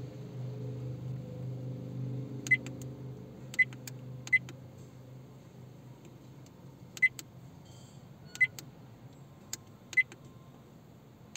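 Redtiger F7N dash cam's touchscreen click tone: six short, high beeps spaced irregularly, one for each tap on the menu. A low hum fades out over the first few seconds.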